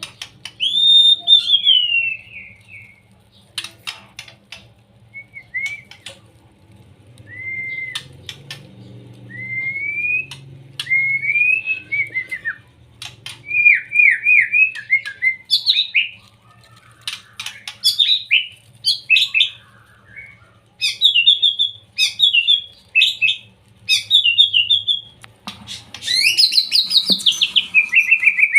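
Young white-rumped shama singing: clear whistled phrases that glide up and down, broken by sharp clicking notes. In the second half come quick runs of repeated notes, and near the end a loud, rapid falling sweep.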